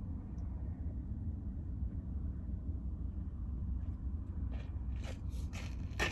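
Steady low rumble, with a run of short rustling clicks starting about four and a half seconds in.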